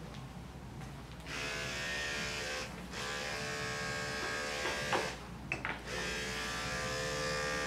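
Electric dog grooming clippers buzzing steadily, switched on about a second in. The buzz cuts out briefly twice, near the middle with a few clicks, before running on.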